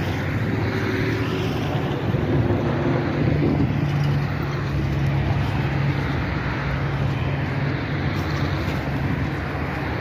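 Steady low hum of a running motor, mixed with wind noise on the microphone.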